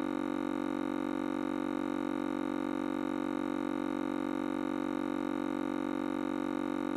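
A steady, unchanging drone tone with many overtones, holding one pitch at an even level throughout.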